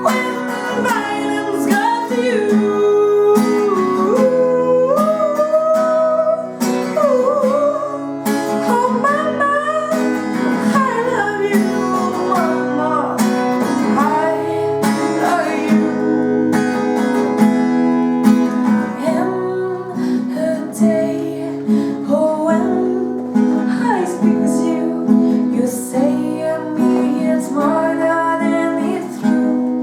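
Acoustic guitar being played, with a voice singing a gliding melody over steady held notes.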